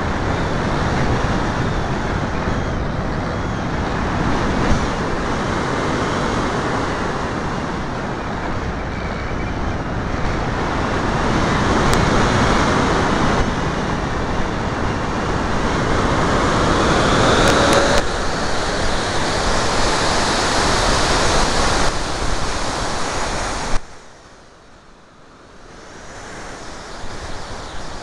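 Rushing airflow and propeller noise picked up by a small camera mounted on a radio-controlled model plane in flight, with a faint rising whine a little past the middle. Just before the end the noise cuts off abruptly with a click. A softer wind rush then builds up again.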